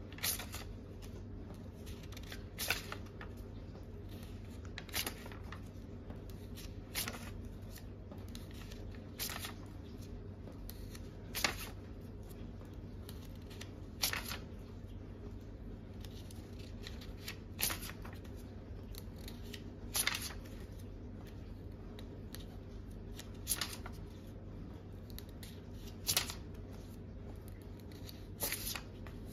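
Euro banknotes being slid one at a time off a stack and laid down on a wooden table: a short, crisp paper rustle every two to three seconds.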